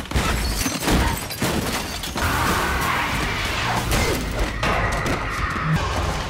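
Action-film sound mix: music over several sudden crashes and thuds from cars ramming into people, with glass shattering.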